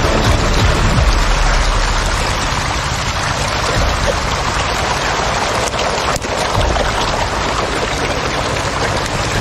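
A dense mass of hybrid catfish churning and splashing at the pond surface, making a steady rain-like patter and hiss, with some low rumble underneath.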